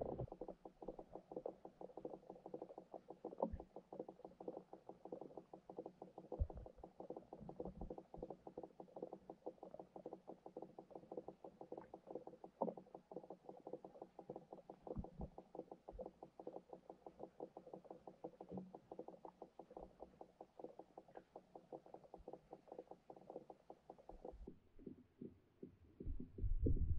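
Muffled underwater sound heard through a GoPro's waterproof housing: a faint, steady run of small ticks and knocks, several a second, with now and then a louder knock.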